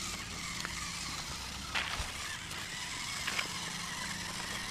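Remote-control rock-crawler truck's small electric motor and gears whirring steadily as it crawls over tree roots, with a couple of sharp clicks about two and three seconds in.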